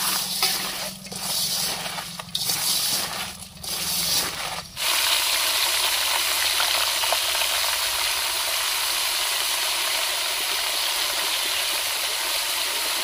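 Small crabs coated in spice paste being mixed by hand in a steel bowl, rattling in short bursts, then from about five seconds in a steady loud sizzle as the crabs are tipped into hot oil to deep-fry.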